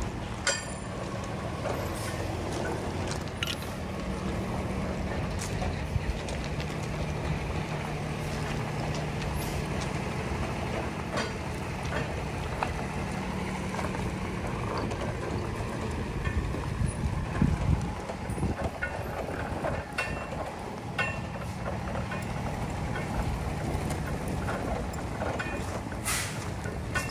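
Medium-duty tow truck's engine running steadily at low speed while it pulls a forklift hooked up by its rear, with scattered clicks and knocks over the top.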